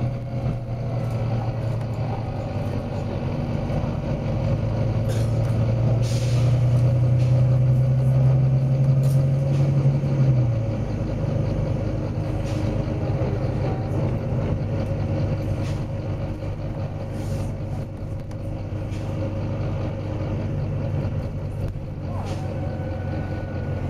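Volvo B9TL bus's six-cylinder diesel engine running, pulling harder for several seconds and then easing off about ten seconds in, with a series of short air hisses from its compressed-air brake system, the longest about six seconds in.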